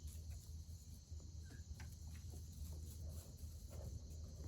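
Faint, quiet background: a steady low hum and a high hiss, with a few soft scattered clicks and rustles.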